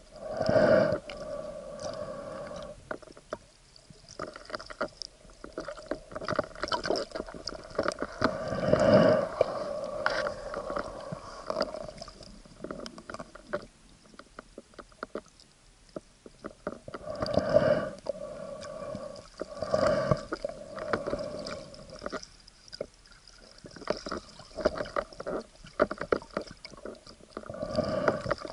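Muffled water noise heard underwater through an action camera's waterproof housing: uneven sloshing and bubbling with a steady hum underneath, and several louder surges, the biggest near the start and about a third of the way through.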